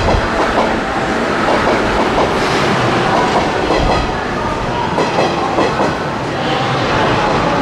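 JR West 103-series electric commuter train running past close by, with a continuous rumble and repeated clacks as its wheels cross rail joints.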